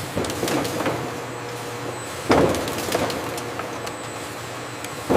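Factory processing-line machinery running with a steady hum and scattered light ticks, broken by a sudden loud clunk a little over two seconds in and another at the very end.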